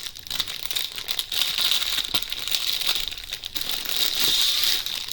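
Packing paper crinkling and rustling as it is handled.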